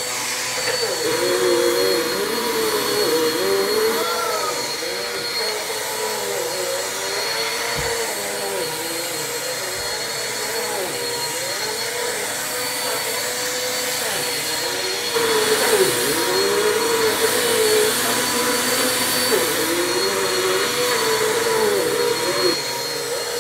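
Bissell PowerForce Compact upright vacuum cleaner running steadily, its motor pitch dipping and recovering again and again over a steady high whine. It gets louder for several seconds past the middle.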